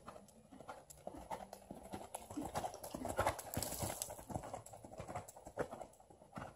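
Horse's hooves beating a steady rhythm on sand arena footing under a rider, growing louder as the horse passes close about three to four seconds in, then fading as it moves away.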